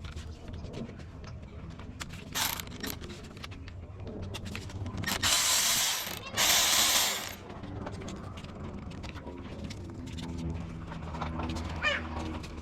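Hand ratchet wrench clicking as bolts on the engine are worked loose, with two louder, faster runs of ratcheting a little past the middle.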